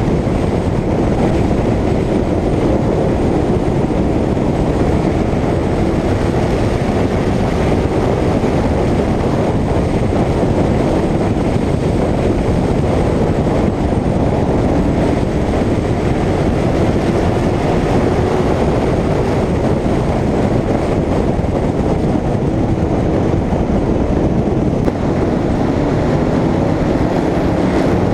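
Short-track stock car engine running at racing speed from onboard, mixed with heavy wind and road noise. Its pitch sinks and rises slowly as the car works round the track.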